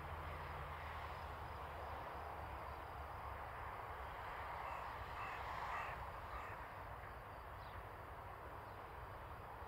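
Faint steady hiss and low hum, with a bird calling faintly a few times about five to six seconds in.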